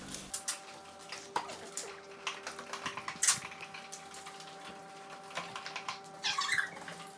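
Scattered light clicks, taps and scrapes of cardboard pieces and tools being handled, with a sharper click about three seconds in.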